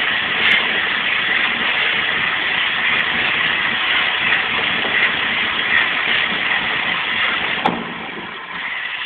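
Wood lathe running while sandpaper is held against the spinning wooden spindle: a steady, loud hiss of abrasive on wood over the running machine. Near the end the sanding stops and the sound eases off.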